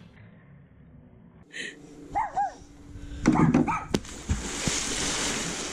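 Two short high calls and then a louder cry, followed by a splash into a swimming pool about four seconds in and the hiss of churning water.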